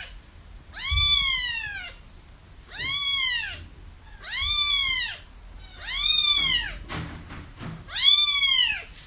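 A kitten meowing five times, about once every one and a half seconds, each call high and short, rising and then falling in pitch.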